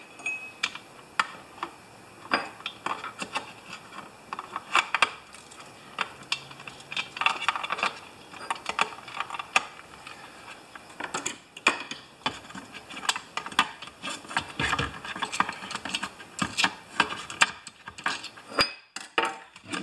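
Hands working a small trimmer carburetor and its rubber fuel lines into a plastic fuel tank: scattered rubbing and scraping with small plastic clicks and taps.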